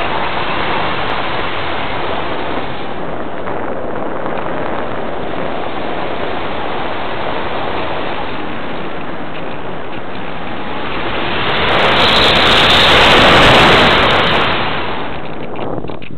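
Wind rushing over the microphone of a small camera riding on a Parkzone Radian electric glider, gliding with its motor off and its folding propeller folded back, so there is no motor sound. The rush is steady, swells louder for a few seconds near the end, then eases.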